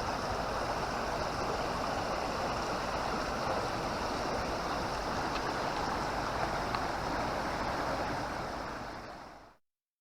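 Steady outdoor rushing noise, fading out about nine seconds in.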